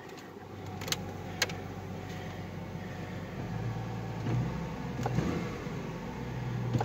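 A 1998 Ford Mustang's engine running at a fast idle right after a cold start, heard from inside the cabin; its hum grows stronger about halfway through. Two sharp clicks come about a second in.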